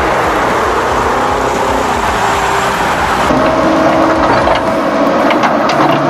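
Toy remote-control construction vehicles running. A steady noisy rumble changes about three seconds in to a small electric motor's whine with rapid clicking.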